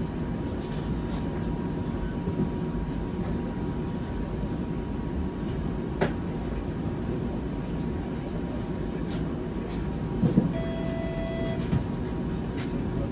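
Inside a Flexity Outlook streetcar: the steady low rumble of the car running on its rails, with a faint steady high whine, a few clicks and knocks, and a short electronic tone lasting about a second some ten and a half seconds in.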